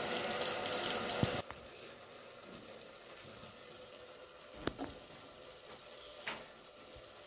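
Oil sizzling in a hot appe pan, cutting off abruptly about a second and a half in. After that comes a faint sizzle with a few light clicks of a spoon as batter is spooned into the pan's cups.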